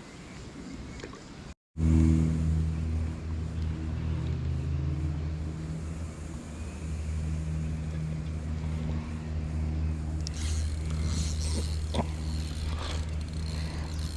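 A steady low motor-like hum with a pitched drone, starting abruptly about a second and a half in after a brief dropout. A few sharp clicks come in near the end.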